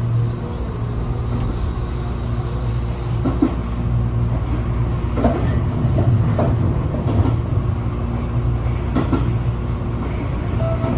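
Electric train running along single track, heard from inside the driver's cab: a steady low rumble of the wheels and running gear, with a handful of irregular clacks from the wheels on the rails.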